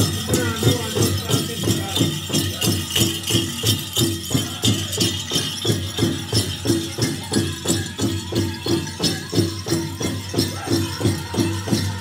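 Powwow drum group performing a grand entry song: a big drum struck in a steady beat of about three strokes a second under high-pitched group singing, with the bells and jingles on the dancers' regalia jingling in time.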